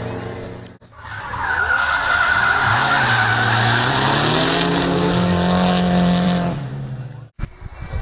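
Two drift cars sliding through a corner in tandem, tyres squealing hard and engines held at high revs, the engine pitch climbing in the middle. The recording cuts out briefly about a second in and again near the end.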